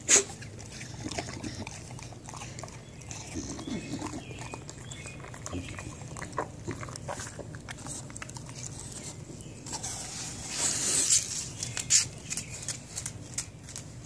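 English bulldog chewing and crunching a piece of apple: irregular short crunches and mouth clicks, with a louder stretch of noisy chewing about eleven seconds in.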